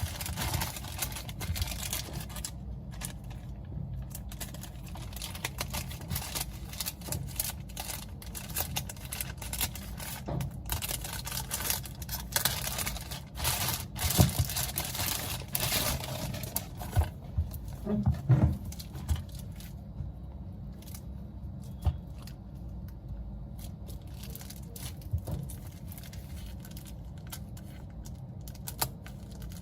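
Small hand tools working on an iPhone X during disassembly: scattered sharp clicks and taps, with stretches of scraping and peeling in the middle and a few louder knocks.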